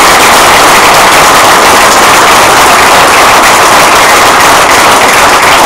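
Audience applauding, loud and steady enough to overload the recording.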